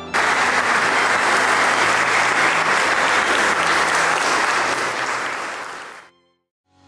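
Crowd of guests applauding, starting suddenly and fading out about six seconds in.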